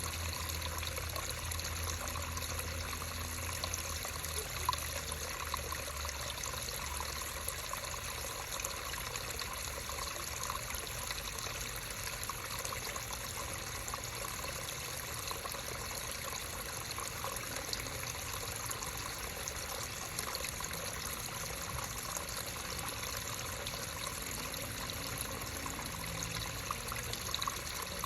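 Running water of a creek trickling steadily.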